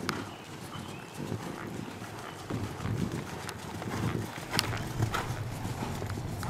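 Hoofbeats of a dressage horse trotting on soft sand arena footing: repeated low thuds with a few sharp clicks.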